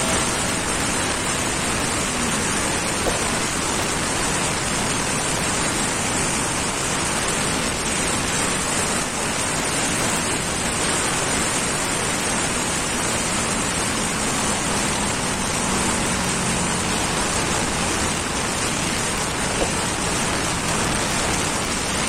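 Heavy, steady wind rush buffeting the microphone of a motorcycle cruising at highway speed, about 100 to 125 km/h. The bike's engine note sits faintly beneath it.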